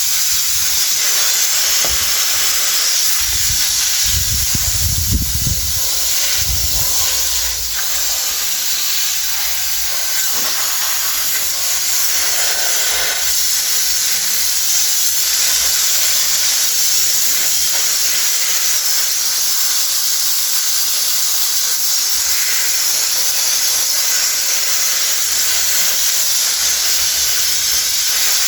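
A steady hiss of noise, with a few brief low rumbles about four to seven seconds in.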